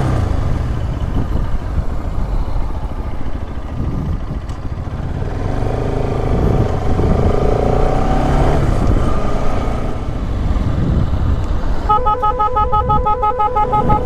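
Bajaj Pulsar RS200 single-cylinder motorcycle running along the road, with wind and road noise. About twelve seconds in, a loud multi-tone bus horn fitted to the bike starts blaring in a fast pulsing pattern.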